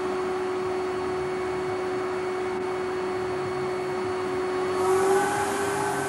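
Canister vacuum cleaner running steadily, a constant motor hum over a whirring rush of air, its nozzle sucking at a cat's fur. About five seconds in, the note wavers and a higher hiss comes in.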